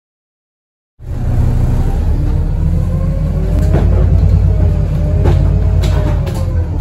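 VDL SB200 bus engine heard from on board, starting about a second in: a loud, steady low rumble with a faint turbocharger whine that slowly rises and then falls. A few sharp rattles or knocks cut through it.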